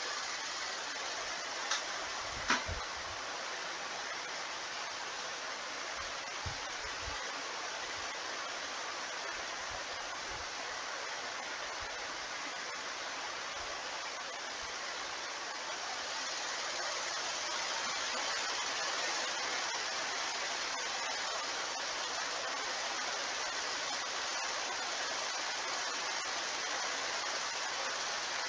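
Steady background hiss, even and without any tone, getting slightly louder about halfway through. Two short clicks come about two seconds in.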